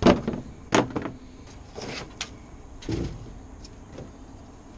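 Handling noise from swapping a car's engine air filter: a few sharp plastic knocks and clatters, the loudest right at the start and just under a second in, then rustling around two seconds and a duller thump about three seconds in.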